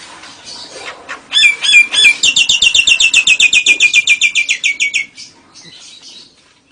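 A caged bird's loud song: three sharp notes, then a fast, even trill of about ten notes a second lasting nearly three seconds and falling slightly in pitch, with fainter bird chatter around it.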